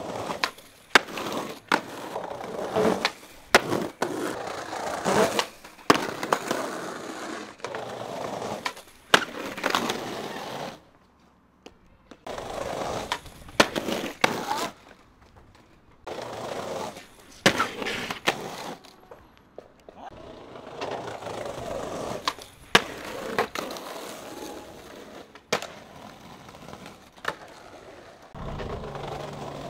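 Skateboard wheels rolling over rough block paving in several runs, broken by sharp clacks of the board being popped and landing, with quieter gaps between runs.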